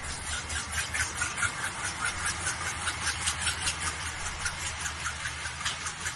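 WDM3D diesel-electric locomotive's 16-cylinder ALCO 251 engine running as it hauls a departing express, with a rhythmic clatter of about three beats a second at an even pace.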